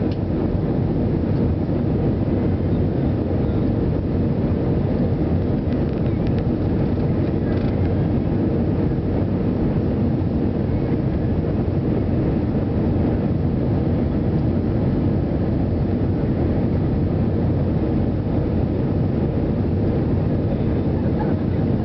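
Airbus A320 jet engines and rushing air heard from inside the passenger cabin during the descent to land: a steady, even low drone.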